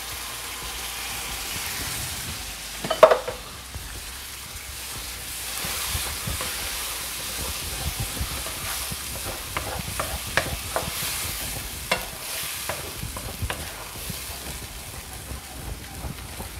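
Chopped tomatoes sizzling in a hot non-stick frying pan with melted butter and fried paprika, with a short loud knock about three seconds in. From about halfway on, a wooden spatula scrapes and clicks against the pan as the sauce is stirred.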